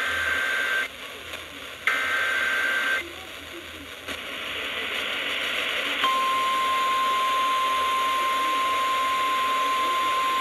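NOAA Weather Radio receiver hissing with static as two short bursts of EAS SAME header data, each about a second long, sound near the start. About six seconds in, the steady single-pitch warning alarm tone begins and holds, signalling that a new weather alert is about to be read.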